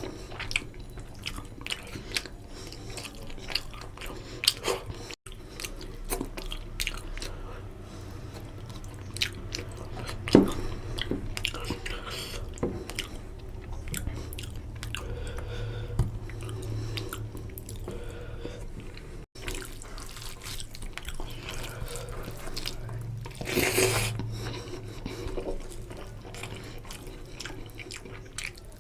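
Close-miked eating sounds of a person chewing a mouthful of rohu fish curry and basmati rice, with scattered small clicks of the mouth and food, one sharper click about ten seconds in and a longer burst of noise near the end.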